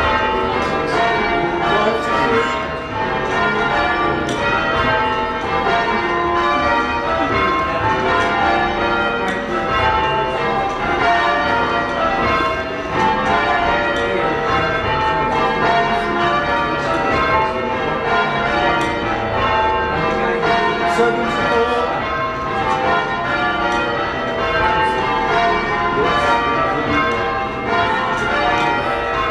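Church tower bells being change-rung, a continuous run of overlapping bell strikes in steady succession, heard from the ringing room below the bells.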